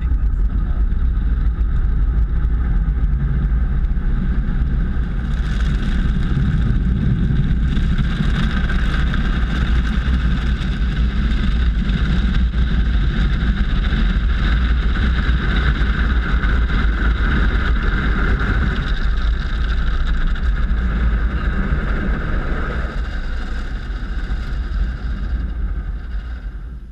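Automatic car wash dryer blowers blasting air over the car: a loud, steady rush with a whine in it. It grows stronger a few seconds in and shuts off abruptly near the end.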